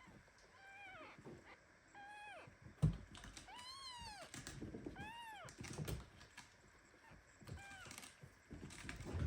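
Newborn kitten meowing in short, high, arching cries, about five of them, the longest near the middle. A few dull thumps fall between the cries, the loudest about three seconds in.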